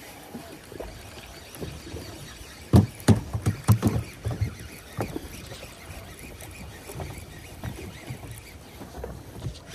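Knocks and clicks from a baitcasting rod and reel being handled on a small boat, in a close cluster about three seconds in and then scattered, over a steady wash of water and wind.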